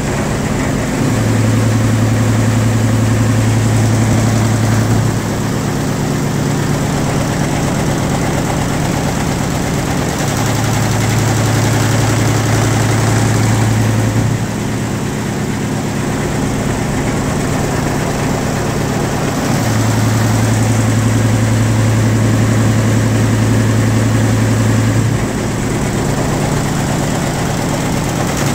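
An engine running steadily at idle, a low hum whose lowest tone swells louder for several seconds at a time, three times.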